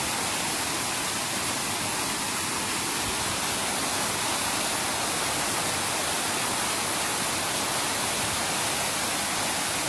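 Steady, unbroken rushing of water, an even hiss with no pauses or changes.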